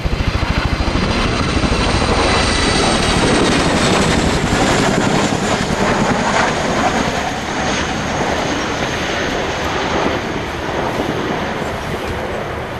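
RAF Boeing Chinook HC2/3 tandem-rotor helicopter flying past close by: rapid, even rotor blade beat under a high turbine whine that slides down in pitch. Loudest in the first half, it eases off toward the end as the helicopter moves away.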